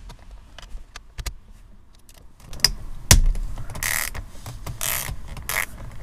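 Ratchet turning a T30 Torx bit to loosen the bolt that holds the steering-wheel airbag pad: scattered light clicks, a sharp knock about three seconds in, then two short ratcheting rattles.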